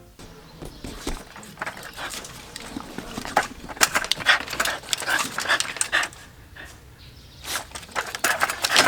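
Shiba Inu dog making short, breathy, snuffling sounds and moving about, heard as uneven clusters of quick noisy bursts that are loudest about four seconds in and near the end.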